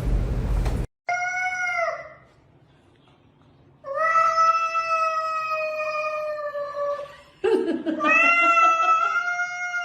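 A cat yowling: a short call that falls away at its end, then after a pause two long, drawn-out yowls. A loud rushing noise runs for about the first second and cuts off suddenly.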